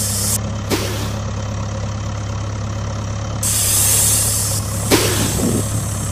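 Heavy diesel engine idling steadily, an engine sound given to a toy backhoe loader, with a burst of hissing air about three and a half seconds in and a few short sharp knocks or swishes, one about a second in and more near the end.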